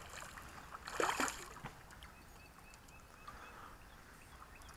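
A hooked trout splashing at the water's surface as it is reeled toward the bank, one short burst about a second in, then faint water sounds.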